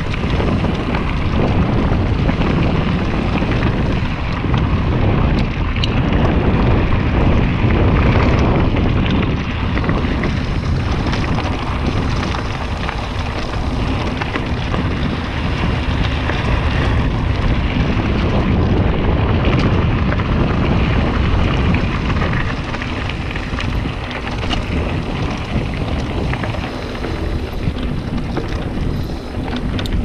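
Wind buffeting the microphone while mountain bike tyres rumble over a dirt trail, a loud continuous noise, with occasional short clicks from the bike.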